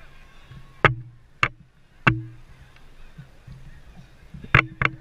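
A handful of sharp knocks: three about half a second apart in the first half and two close together near the end, some with a short low ring after them, over a faint low hum.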